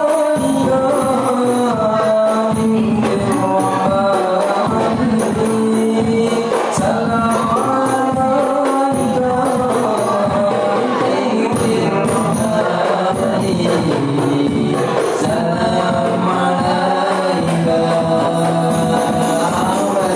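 Rebana frame drums played in a steady rhythm, with voices singing a melody over them.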